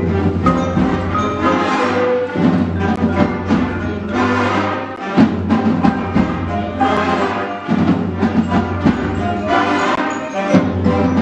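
Full concert band of woodwinds, brass and percussion playing a loud, driving mambo, with sharp percussion hits keeping a steady beat.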